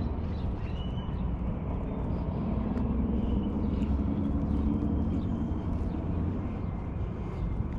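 Steady low rumble of a distant engine or machinery, with a hum that swells and fades, and faint short bird chirps above it.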